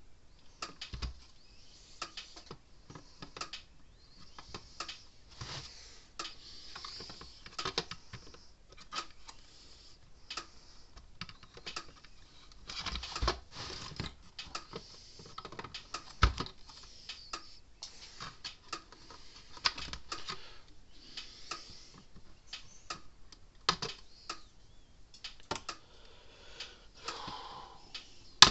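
Irregular clicks and taps of small parts and hand tools being handled at a workbench, with short stretches of light scraping, as a part is worked to seat in an electric fence charger.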